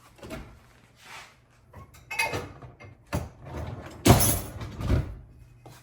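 Kitchen clatter as things are handled and moved about: a string of knocks, scrapes and rustles about once a second, the loudest about four seconds in.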